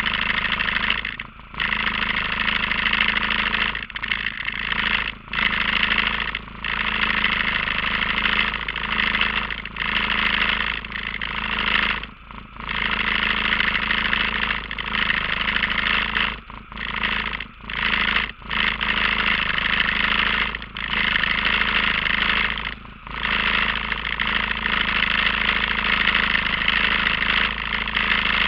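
ATV engine idling steadily, picked up close by a camera mounted on its front, with the sound briefly cutting out every couple of seconds.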